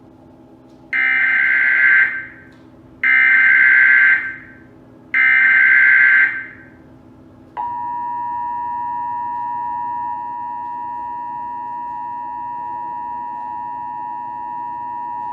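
Emergency Alert System header: three short bursts of SAME digital data, each a harsh screeching buzz about a second long, then from about halfway through the steady two-tone EAS attention signal, held for about eight seconds. The sequence signals the start of a broadcast emergency alert.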